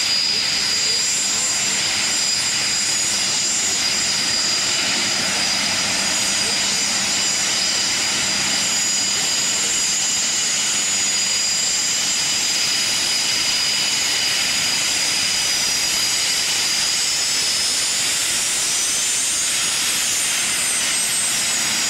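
Dassault/Dornier Alpha Jets taxiing, their twin Larzac turbofans giving a steady high whine over a rushing noise. Near the end the whine bends down and back up as a second jet comes close.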